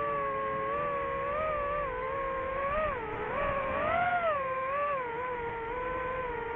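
DJI FPV drone's motors whining in flight, the pitch wavering up and down, with a few quick rises and dips about three to four seconds in.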